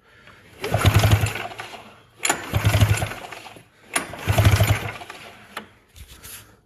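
Arctic Cat snowmobile's two-stroke engine cranked over three times, each a short run of fast, even pulses, without catching: a spark check with the engine not meant to start.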